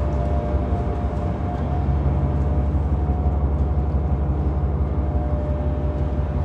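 Car ferry's engines running underway: a steady deep rumble with a faint steady hum above it.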